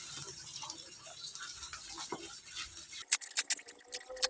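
Plastic wrapping being pulled open and handled, a soft rustle that turns into quick sharp crinkling crackles about three seconds in.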